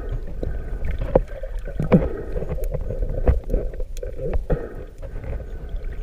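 Underwater noise picked up by a camera held below the sea surface: a muffled, uneven low rumble of moving water with scattered clicks and knocks.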